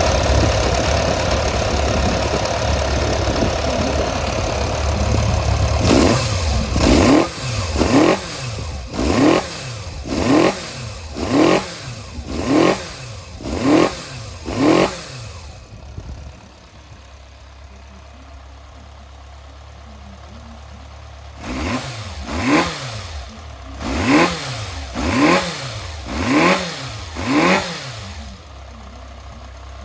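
Yamaha XJR400 (RH02J) air-cooled inline-four engine idling steadily, then blipped hard about nine times, roughly once a second. It settles back to a quieter idle, then is blipped about six more times. The seller lists it as running without abnormal noise.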